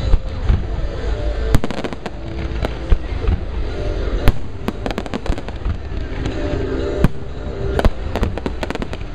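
Aerial fireworks shells bursting overhead: a run of sharp bangs at irregular intervals, the sharpest about four seconds in.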